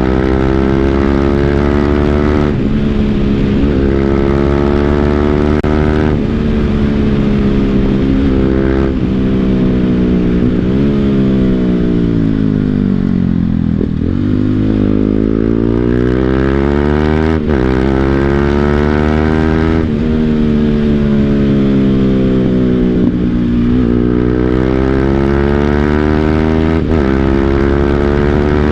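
BMW G 310 GS single-cylinder engine through an Akrapovic full-system exhaust, heard on board while riding. The engine pulls up through several gear changes, its note dropping sharply at each shift. About halfway it slows with a long falling note, then it accelerates again through more shifts.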